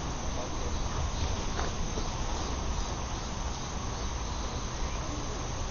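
Crickets chirping steadily over an even hiss with a low rumble underneath.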